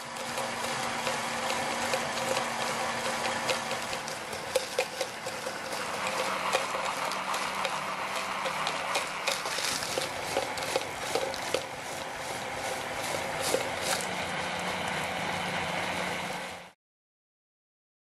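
Small metal Remington typewriter parts and granular tumbling media churning and rattling inside a plastic jar turned by a cordless drill, with frequent sharp clinks of metal and a steady motor hum underneath. It cuts off suddenly near the end.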